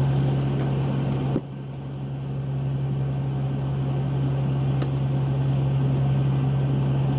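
Squid-jigging boat's machinery running with a steady low drone.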